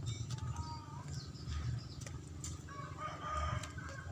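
A rooster crowing about three seconds in, with a shorter call near the start, over a steady low hum.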